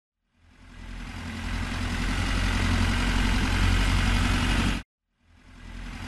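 Tractor engine running steadily. It swells up over the first second or so, cuts off abruptly a little before five seconds in, then comes back more quietly near the end.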